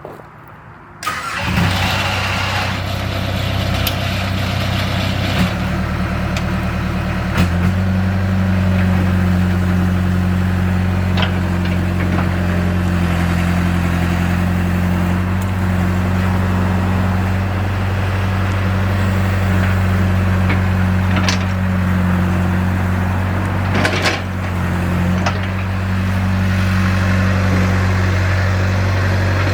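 1995 Caterpillar E70B excavator's diesel engine starting about a second in and then running steadily; about seven seconds in its note changes and it carries on at a louder, steadier pitch, with a few short clicks and knocks.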